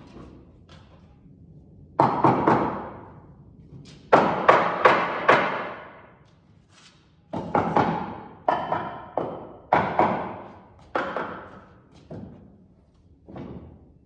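Nails being driven into a wooden floor truss: sharp knocks in quick runs of two to four, about a dozen in all, each ringing out briefly in the large metal-arched building.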